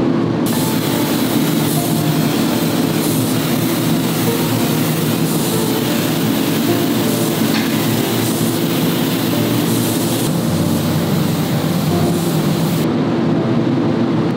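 Compressed-air spray gun hissing steadily, starting about half a second in and cutting off sharply near the end, over a steady low hum.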